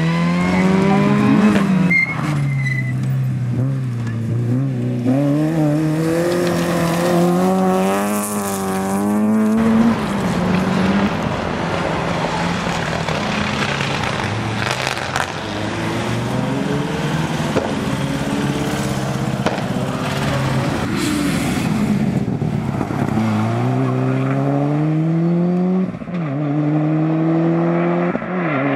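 Rally car engines at full throttle, one car after another, the pitch climbing and then dropping sharply again and again with gear changes and lifts off the throttle.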